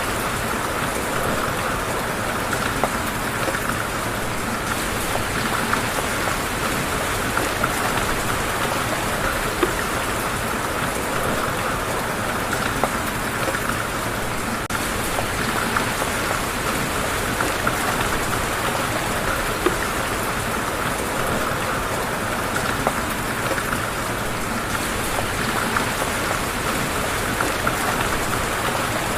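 Steady rain falling on a surface, a dense even patter with many small drop ticks.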